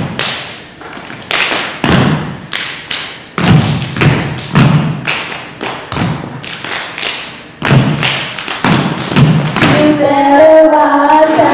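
Step team performing a routine of body percussion: many loud stomps on the stage floor and claps in a fast, shifting rhythm. Voices join in together about ten seconds in.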